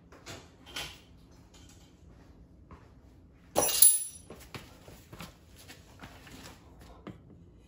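Handling noises from someone working on a golf cart: a few soft knocks, then one loud metallic clank with a brief high ring about three and a half seconds in, followed by lighter clicks and rustling.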